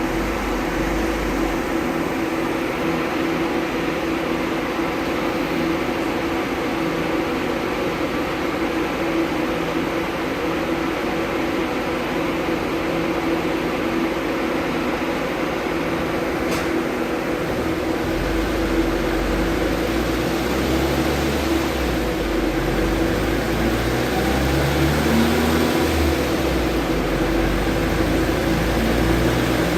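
Mk1 Vauxhall Cavalier running on a rolling road dyno: a steady mechanical drone from the engine and rollers, with a deeper rumble coming in about two-thirds of the way through and the sound growing a little louder toward the end.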